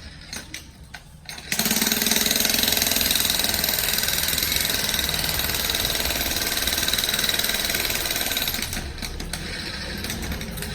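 A power tool running loudly and steadily. It starts up about a second and a half in and drops to a lower level near the end.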